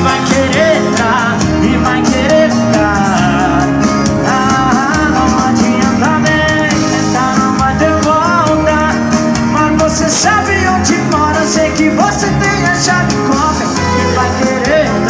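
Loud live band music with singing, played without a pause through the concert PA.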